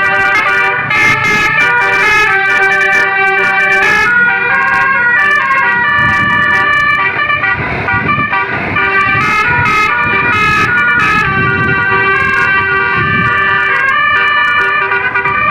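Bus telolet horn with a basuri multi-trumpet module playing a loud melody, held notes switching pitch several times a second. A low rumble rises underneath around the middle.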